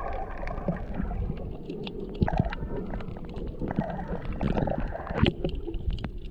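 Water sloshing and bubbling around a camera held just under the surface, with a low rumble and many scattered sharp clicks and crackles.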